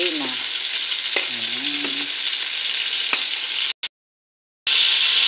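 Melted margarine sizzling steadily in a hot metal wok as it heats for frying, with a few sharp pops. The sound cuts out completely for about a second near the end, then the sizzle returns louder.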